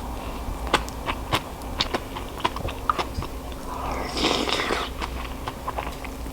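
Someone eating at the table: irregular sharp clicks of utensils against dishes, with chewing and a louder crunching rustle about four seconds in.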